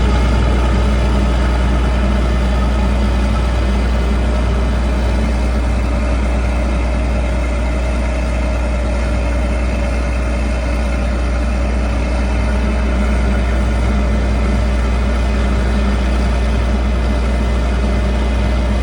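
Large diesel engine of farm machinery running steadily at constant speed: a loud, even, low drone with no change in pitch.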